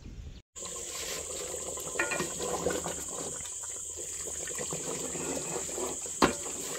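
Meat curry bubbling in a metal pot while a ladle stirs it, beginning after a moment's silence. A sharp knock of the ladle against the pot comes about six seconds in.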